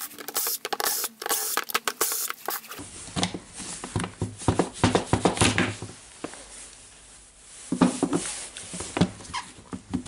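Plastic clamshell housing of a cordless impact wrench being pulled apart and handled on a wooden tabletop: a rapid run of sharp clicks for the first few seconds, then scattered plastic knocks, clicks and rattles of the loose housing and internal parts.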